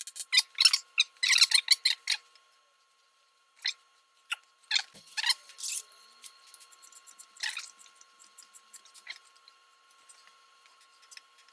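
Scattered short metallic clicks and scrapes from hand work on a motorcycle's front end. They are densest in the first two seconds, with a few single knocks later.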